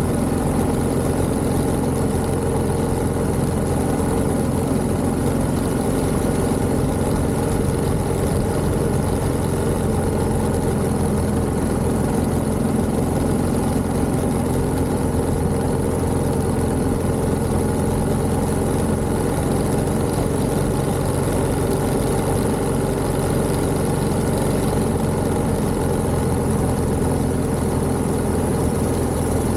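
1929 Méray motorcycle's JAP 600 engine running steadily at an even speed, with no revving.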